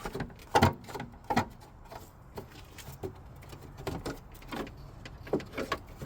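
A few knocks and clatter of a loose engine-bay part being pushed and wiggled into place, loudest about half a second and a second and a half in, then lighter clicks; the part sits loose because one of its rubber grommets is missing.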